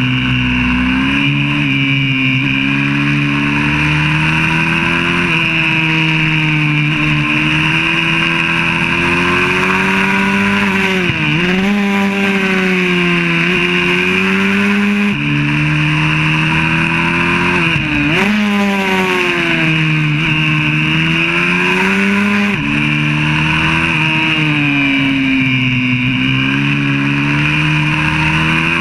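YCF 125cc four-stroke pit bike engine at full racing pace, heard from a camera mounted on the bike. The pitch climbs and drops suddenly at each gear change, and twice falls sharply and climbs back.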